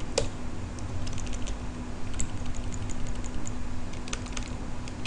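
Computer keyboard keys tapped in a run of short, light clicks, stepping through an on-screen menu, with one louder key press just after the start. A low steady hum runs underneath.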